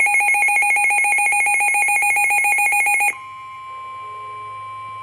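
A Midland NOAA weather radio sounds its built-in warning alert: loud, rapid two-tone beeping that cuts off about three seconds in. A quieter, steady single tone follows, the 1050 Hz Warning Alarm Tone of the National Weather Service broadcast that signals a warning.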